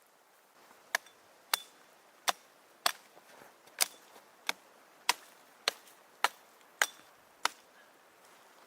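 A hand tool striking repeatedly: about a dozen sharp blows in a steady rhythm, roughly one every 0.6 seconds, starting about a second in and stopping near the end.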